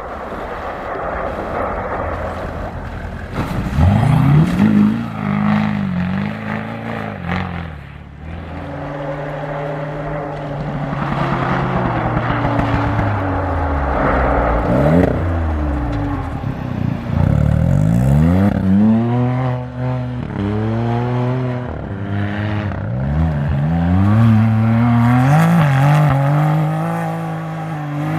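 Rally-raid vehicle engines revving hard as they pass, the pitch climbing through each gear and falling away, several times over, with a rushing noise of the vehicles moving underneath.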